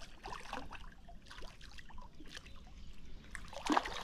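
Water splashing and trickling as a small hooked carp thrashes at the surface while it is played in, with a louder splash near the end.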